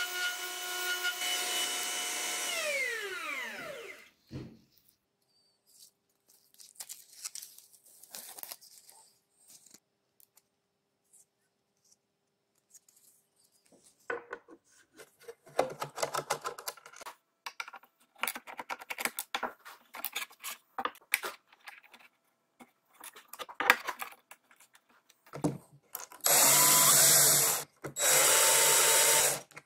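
A motor whine winds down and stops in the first few seconds, then metal parts and screws click and scrape. Near the end a cordless drill-driver runs twice in short loud bursts, driving screws with a long extension bit into the steel facing of a router-table fence.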